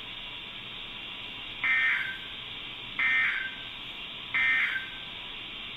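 Emergency Alert System end-of-message signal: three short bursts of SAME digital data, each a harsh two-tone warble, about 1.3 seconds apart over a steady hiss. The bursts mark the end of the alert message.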